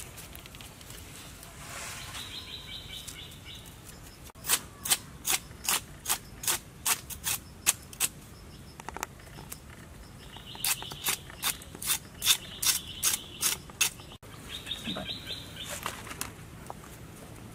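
Knife cutting through crocodile tail hide: two runs of sharp, crisp snicks, about three a second. Birds chirp in the background.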